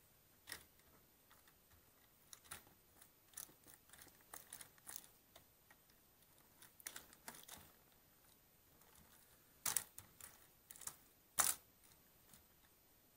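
Keys of a Microsoft computer keyboard clicking irregularly as a blob of cleaning gel is pressed down onto them and lifted off, with two louder clacks late on.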